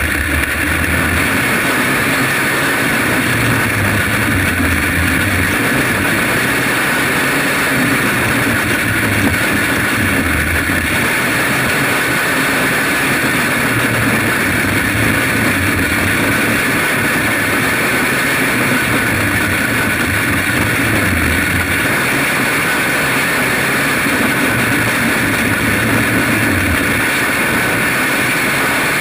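Small racing engine of a winged dirt-track sprint kart running hard at race speed, heard onboard, its pitch dipping and climbing again every few seconds through the laps.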